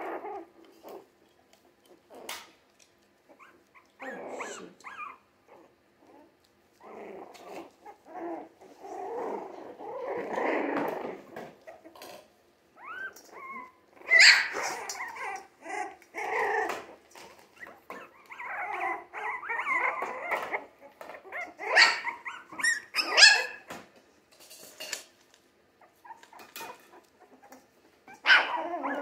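Three-week-old Jack Russell terrier mix puppies playing, giving short, squeaky growls, whimpers and yips in scattered bursts, with gaps of quiet between.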